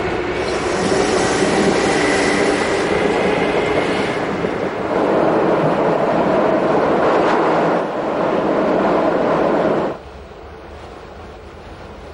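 Train running on the rails, a loud steady rumble of wheels with a faint high squeal in the first few seconds. The noise drops suddenly about ten seconds in to a quieter rumble.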